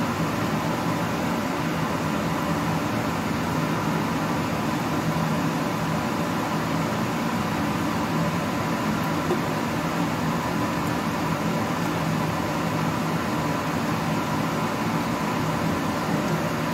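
Steady electric fan hum: an even whir with a low drone and a faint higher tone, unchanging throughout.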